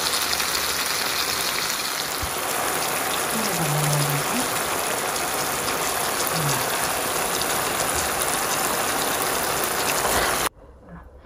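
Curry sizzling and simmering in a hot pan, a steady crackling hiss that cuts off suddenly near the end.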